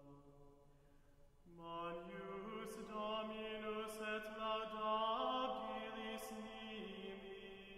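Slow chant sung on long held notes, with a few changes of pitch and soft sung consonants. It fades low at first and comes back in about a second and a half in.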